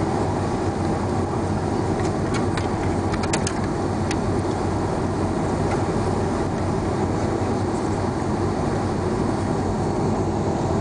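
Steady cabin noise of a jet airliner taxiing after landing: the underwing engines at idle and a low rumble from the airframe rolling over the taxiway. A few faint clicks about two to four seconds in.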